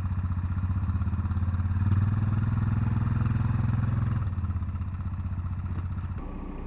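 ATV engine running, revving harder for a couple of seconds, then easing off about four seconds in.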